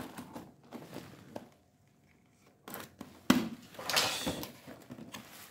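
Bubble wrap and a cardboard toy box rustling and crinkling as the box is handled and pulled free, with a pause partway through. A sharp knock about three seconds in is followed by a burst of louder rustling.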